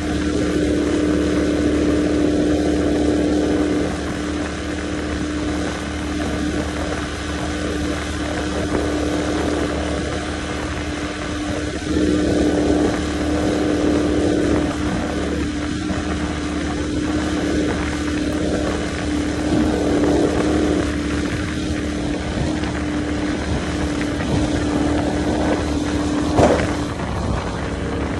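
Outboard motor running steadily at speed, pushing a bass boat across open water: a steady engine drone over the rush of water and wind. Near the end the engine note dips briefly with a short knock.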